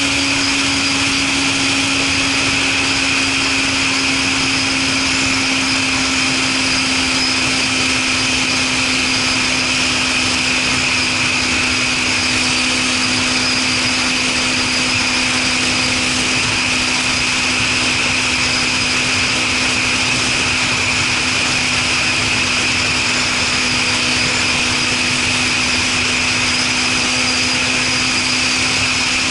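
Suzuki Katana motorcycle engine running through a Super Combat aftermarket muffler, holding a steady, even pitch with no revving or gear changes.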